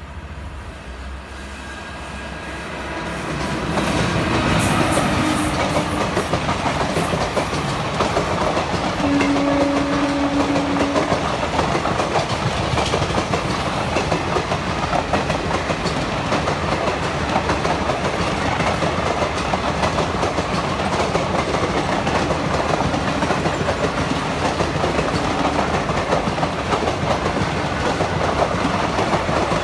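Passenger express hauled by a WAP4 electric locomotive passing close by on the next track: the sound swells as the locomotive arrives about three seconds in, then a steady rattling clickety-clack of coach wheels over the rail joints as the coaches run past. A brief steady low tone sounds for about two seconds near the middle.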